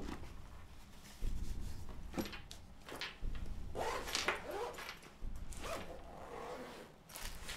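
Rustling and scraping from papers and a bag being handled, in several short bursts with a few clicks.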